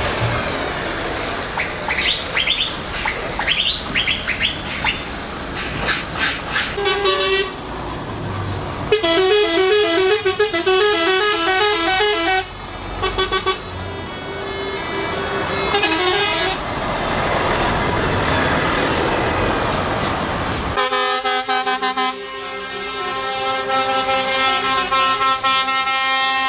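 Trucks driving past with their air horns sounding: short toots, a rapid alternating two-note horn pattern in the middle, and a long chord-like air horn blast held through the last few seconds, over diesel engine noise.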